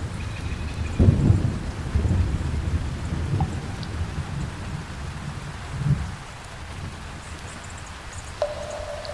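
Thunder rumbling over steady heavy rain in a rainforest thunderstorm; the rumble is loudest about a second in and dies away after about six seconds, leaving the rain. A faint held tone comes in near the end.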